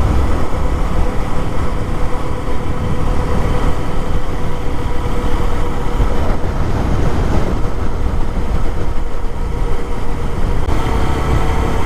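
Lifan KPX250's single-cylinder four-stroke engine running steadily while riding, with wind rushing over the microphone.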